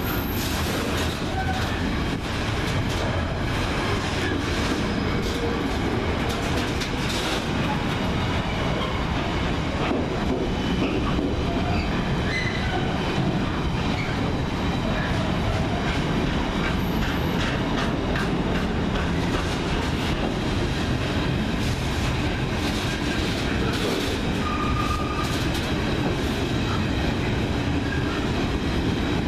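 Container freight train's loaded flat wagons rolling past, wheels clattering steadily over the rail joints, with a few brief wheel squeals on the curve.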